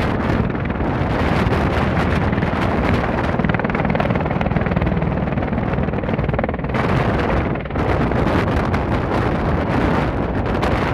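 Bell Boeing V-22 Osprey tiltrotor hovering low in helicopter mode, its two big proprotors and engines running loud and steady, with a rapid pulsing beat from the blades.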